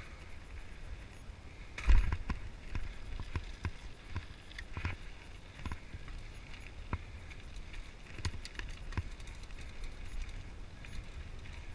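Mountain bike riding down a dirt trail, heard from a camera on the bike or rider: a steady low wind rumble on the microphone with irregular rattles and knocks as the bike goes over bumps. The loudest is a thump about two seconds in.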